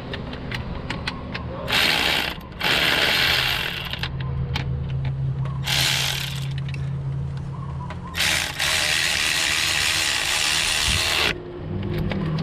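Ratchet wrench clicking as the starter's mounting bolts are run in and tightened against the transmission. Separate clicks at first, then several runs of fast, dense clicking, the longest about three seconds near the end.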